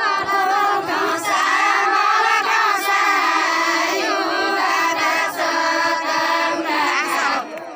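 A group of women singing a deuda folk song together, holding long drawn-out notes, with a brief break near the end.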